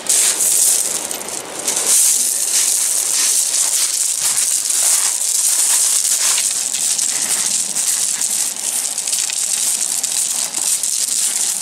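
Shingle beach pebbles crunching and rattling, a dense crackling clatter of many small stones shifting.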